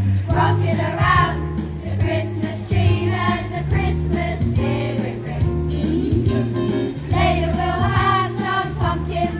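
Young mixed choir singing together in unison from song sheets, over a steady low bass line that moves in held notes.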